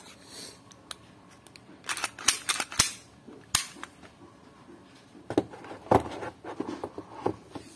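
Sharp plastic-and-metal clacks from handling a WE Glock 18C airsoft pistol and its magazine, several snaps in quick succession about two to three and a half seconds in. Duller knocks follow near the end as the pistol is set down into its moulded pulp-fibre box tray.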